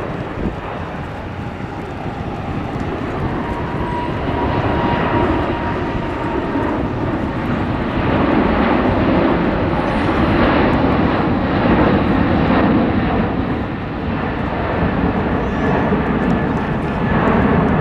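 Airbus A380's four turbofan engines during a low flyby with the landing gear down: a steady jet noise with a faint high whine. It grows louder over the first several seconds and is loudest around the middle.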